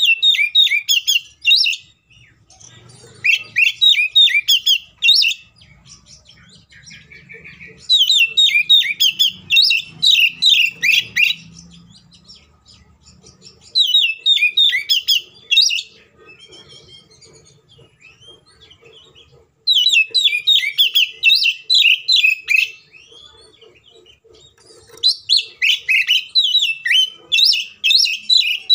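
Oriental magpie-robin (kacer) singing: six loud phrases of rapid, varied whistled and chattering notes, each two to four seconds long, separated by short pauses.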